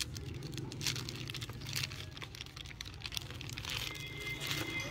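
Thin plastic bag crinkling and crackling in irregular bursts as a camera battery is pulled out of it, over a low steady hum.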